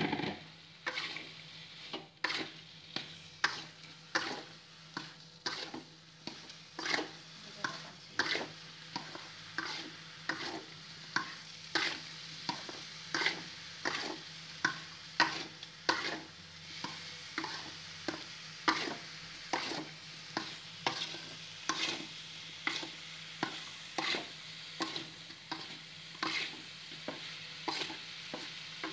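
A spatula scraping and knocking against an aluminium wok about twice a second as diced potatoes are stir-fried in sweet soy sauce seasoning, over a steady sizzle.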